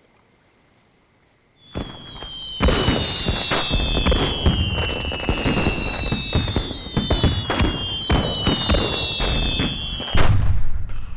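Aerial fireworks going off: after a moment of near silence, a dense run of crackles and bangs with several long whistles gliding slowly down in pitch, then one loud boom near the end.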